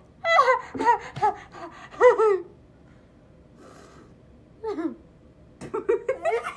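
Girls laughing hard in short, gasping bursts, breathless between laughs. A pause follows, then a single falling vocal sound a little before the five-second mark, and more laughing near the end.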